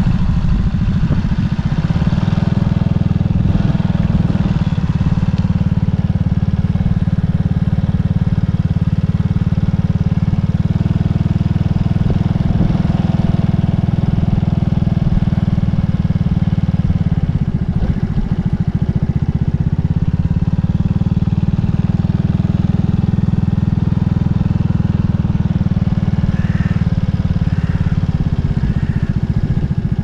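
Motorcycle engine running steadily under way, easing off briefly a little past halfway before pulling again.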